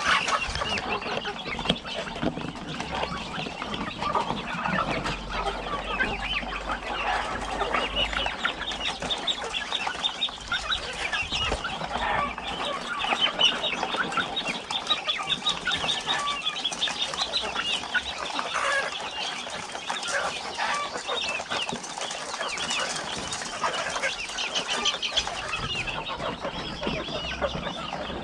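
A flock of chickens clucking and calling continuously, many birds overlapping.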